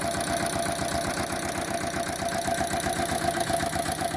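A Lister LT1 single-cylinder air-cooled diesel stationary engine runs steadily with a fast, even beat. Its tappets are due for adjustment, according to the owner.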